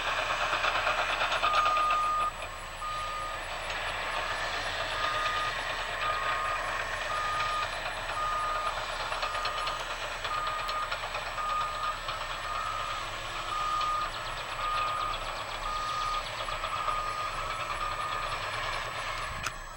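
Reversing alarm of a heavy construction machine, beeping steadily about once a second over a running diesel engine.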